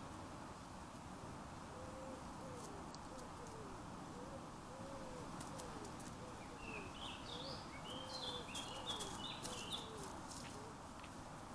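A bird cooing: a long run of short, low, arched notes. In the second half a small bird chirps a quick series of high notes over it, against a steady outdoor hiss.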